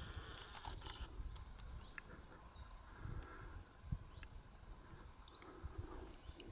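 Faint outdoor ambience: a steady low rumble with scattered small clicks and ticks, and one sharper knock about four seconds in. No deer calls are heard.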